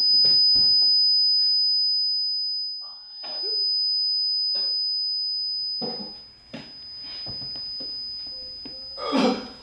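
A steady, high-pitched ringing tone held throughout, over faint scattered knocks and rustles. Near the end there is a short, loud, cough-like burst.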